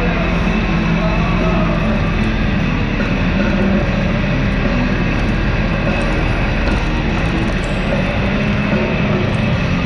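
Steady engine drone of an off-road side-by-side UTV driving along a dirt road at cruising speed, with a constant rush of road and wind noise.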